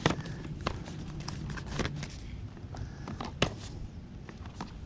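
Plastic DVD cases clacking as they are handled and set down, a handful of sharp clicks spread a second or so apart over a low steady background rumble.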